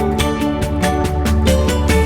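Background music with a steady beat over a sustained bass.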